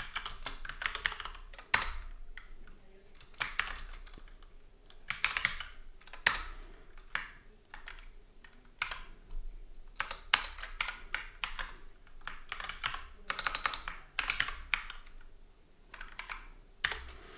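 Typing on a computer keyboard: bursts of quick keystrokes with short pauses between them.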